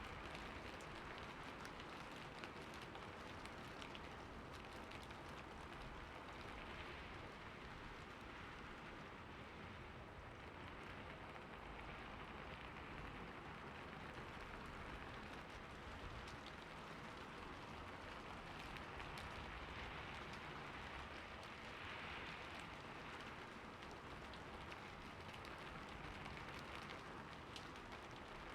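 Steady rain falling on a surface, an even hiss of many fine drops with scattered small patters.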